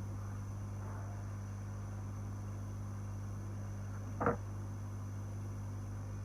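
Steady low electrical hum with a faint high whine, broken once about four seconds in by a brief short sound.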